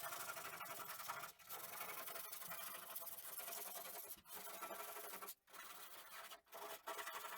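Hand sanding by hand with sandpaper: a steady scratchy rubbing, broken by a few short pauses between runs of strokes.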